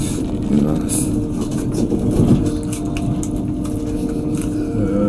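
ICE high-speed train running, heard inside the passenger compartment: a steady low rumble with a constant hum.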